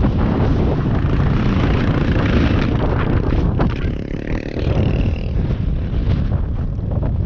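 KTM enduro dirt bike engine running under heavy wind buffeting on the helmet microphone. About three and a half seconds in comes a short clatter of knocks as the bike goes down on its side in the rut.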